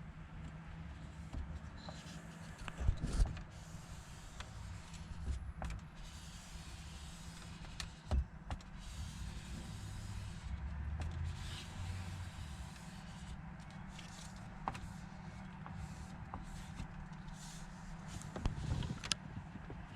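Low steady hum inside a vehicle cabin, with scattered light clicks and knocks of hands working at the dashboard, the loudest about 3 seconds in, 8 seconds in and near the end.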